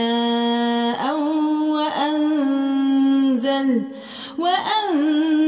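A reciter's voice chanting Quran verses in the Warsh reading, drawing syllables out into long held notes. There is a short pause about four seconds in.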